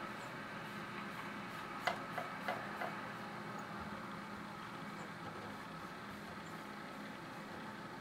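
A cat's paws tapping lightly on a computer screen and desk: four quick taps about two seconds in, over a steady low hum.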